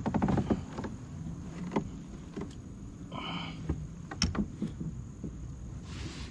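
Rapid ticking in the first half second, then scattered light clicks and knocks of a small sunfish and fishing tackle being handled on a plastic kayak. A brief high-pitched tone about three seconds in.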